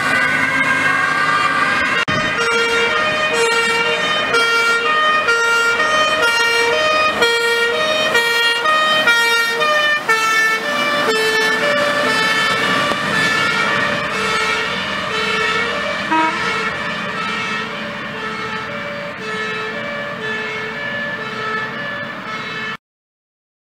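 Fire engine's two-tone siren, stepping between a high and a low note about twice a second over the truck's engine. It grows fainter as the truck drives away, then cuts off sharply near the end.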